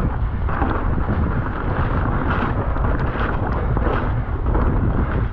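Wind buffeting the microphone over the steady rumble of a mountain bike rolling fast down a wet dirt trail, with small rattles and knocks as it goes over bumps.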